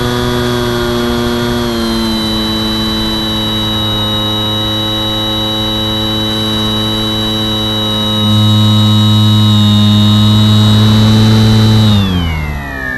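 Bixler 2 model plane's electric motor and pusher propeller heard from a camera mounted on the plane: a steady, loud whine that drops a little in pitch about two seconds in and grows louder about eight seconds in. Near the end the pitch falls steeply as the throttle is pulled back.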